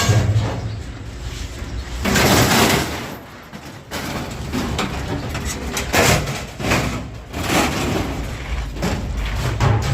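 Scrap metal being unloaded, with several separate crashes and scrapes a few seconds apart over a low engine rumble.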